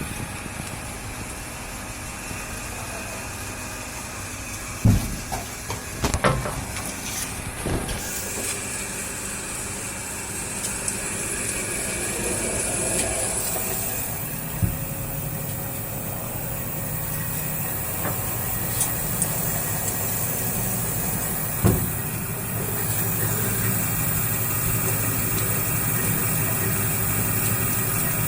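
Wave soldering machine running: a steady mechanical hum with hiss, broken by a few sharp knocks, several in the first third and one more later on.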